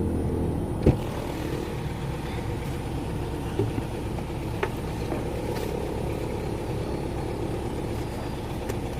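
Kia Carnival's diesel engine running steadily with a low rumble, and one sharp click about a second in.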